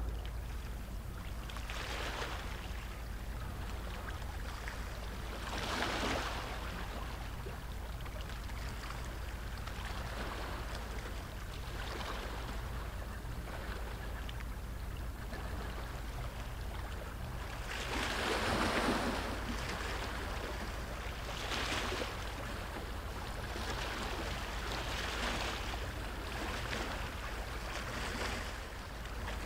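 Steady low drone of a passing inland cargo ship's diesel engine, with river waves washing against the bank and swelling every few seconds, loudest about two-thirds of the way through.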